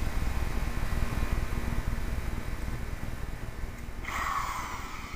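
Wind buffeting the microphone, a low fluttering rumble that slowly eases off. About four seconds in comes a short rustle, like plastic or material being handled.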